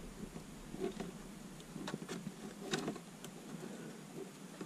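Faint rustling and a few soft, scattered clicks of thin, light-gauge hookup wire being handled and twisted together by hand.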